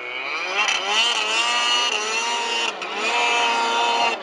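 Snowmobile engine revving hard, its pitch climbing about half a second in and then held high as the sled powers up a slope, with a brief drop in revs about two-thirds of the way through.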